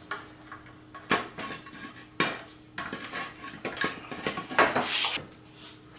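Scattered metallic clinks and knocks from handling the loosened bolts and fuel tank on a 1960s Evinrude 3 hp outboard motor, with a louder rattling clatter about three quarters of the way in.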